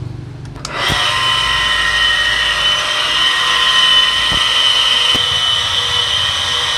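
Electric water pump switched on with a click about a second in, then running with a loud, steady, high-pitched whine. The noise is from its bearing, rusted after water leaked past a worn mechanical seal.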